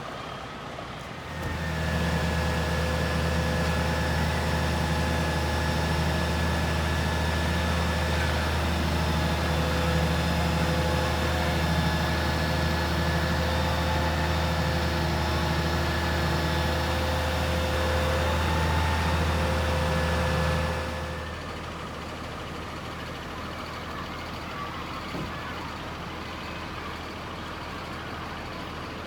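Fire engine's diesel engine running loudly at a steady speed, a deep hum with several constant tones above it. It comes in about a second in and drops back after about twenty seconds to a quieter idle.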